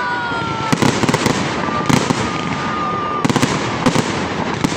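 Fireworks going off: a rapid run of sharp bangs and crackles, with a whistle sliding down in pitch through the first second and another held whistle between about two and three seconds in.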